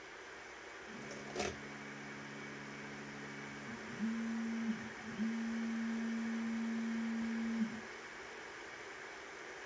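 Longer Orange 4K resin printer's Z-axis stepper motor humming as it moves the build plate over the resin vat: a first move in several low tones with a sharp click about a second and a half in, then two single-tone moves, each gliding in pitch as it starts and stops. A steady fan hiss runs underneath.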